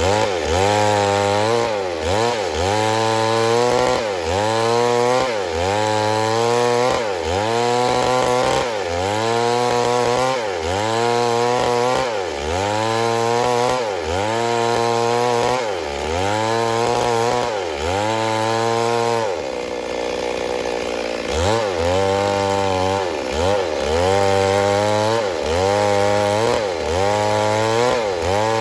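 Stihl MS 382 two-stroke chainsaw running under load in wood. Its engine pitch dips and recovers over and over, about every second and a half, with a short steadier spell about two thirds of the way through.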